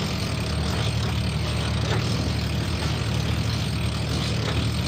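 Sailing yacht's inboard diesel engine running steadily while motoring into a choppy headwind, under a steady rush of wind and water.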